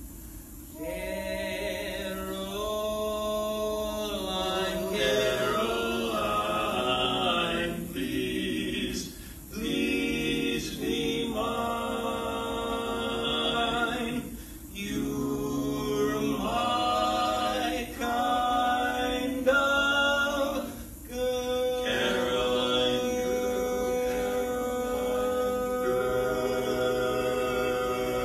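Men's chorus singing a cappella in several-part harmony, in phrases with short breaks for breath, settling about three quarters of the way in onto one long held chord.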